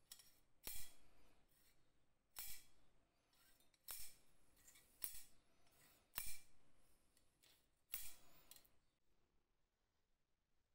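Restored AXA glazing point driver being worked by hand: its spring-loaded driver snaps with a sharp metallic click six times, about every second and a half, with each squeeze of the handle.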